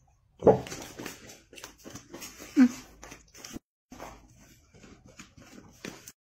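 Golden retrievers eating cream cake from paper plates: irregular wet licking and chewing, with two louder short sounds about half a second and two and a half seconds in.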